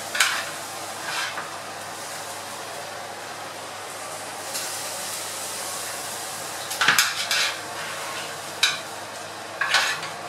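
Metal kitchen tongs clinking and scraping against a metal baking tray as glazed pork spareribs are lifted off it: a few sharp clinks, with a cluster of them about seven seconds in, over a steady hiss.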